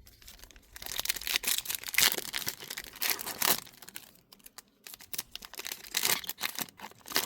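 A trading card pack's wrapper being torn open and crinkled, in irregular crackling bursts that are loudest in the first half.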